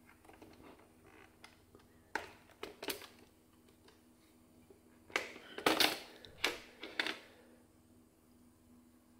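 Sharp plastic clicks and knocks as the brush cover on the underside of a Vorwerk Kobold VR300 robot vacuum is unlatched and lifted off: a few light clicks about two seconds in, then a louder cluster between about five and seven seconds in.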